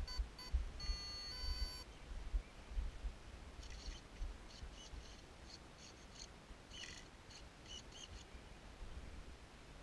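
Electric ducted fan's brushless speed controller beeping: a few short beeps, then two longer tones, the power-up arming signal. Then birds chirp on and off for several seconds, with wind rumbling on the microphone throughout.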